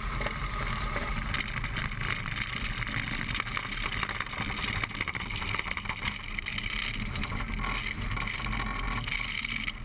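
Small single-engine plane's engine and propeller running steadily during its landing roll, mixed with wind noise on an outside-mounted camera, as the plane ground-loops off the runway onto grass near the end.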